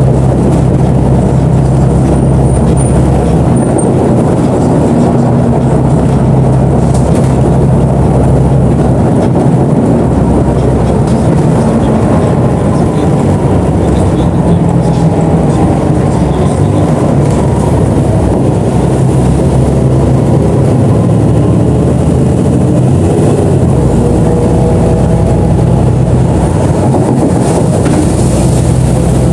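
BonLuck DD6181S32 articulated city bus running. Its engine drones steadily and loudly, and a whine rises in pitch several times through the middle as the bus gathers speed.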